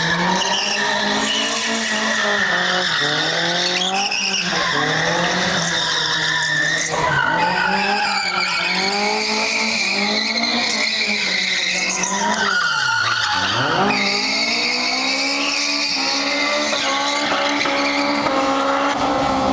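Honda S2000's four-cylinder engine revving hard while drifting, its pitch rising and falling again and again, with tyres skidding and squealing. About thirteen seconds in the revs drop sharply and climb straight back.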